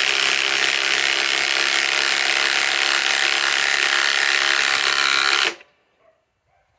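Ryobi PSBIW25 cordless compact impact wrench hammering steadily at high torque as it drives a fastener into wood, then stopping abruptly about five and a half seconds in.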